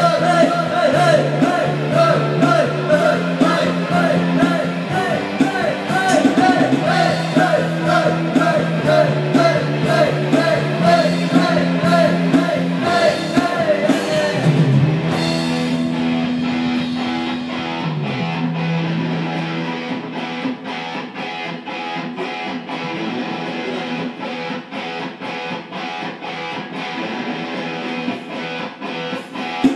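Rock song with singing and guitar. The voice drops out about halfway and the instruments carry on more quietly.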